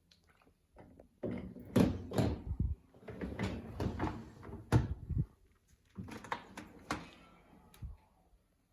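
Bosch Serie 4 dishwasher door and racks being handled: a run of irregular knocks, clatters and sliding noises that stops near the end.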